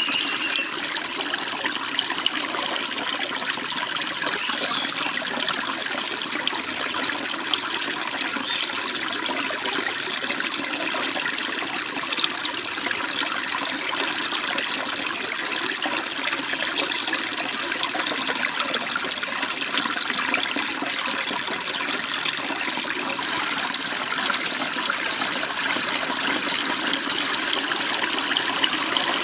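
Stream water babbling and tumbling over small waterfalls: a steady, unbroken rush.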